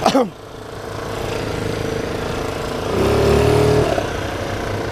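Motor scooter's small engine running while riding slowly in traffic, with a louder surge of engine sound lasting about a second around three seconds in.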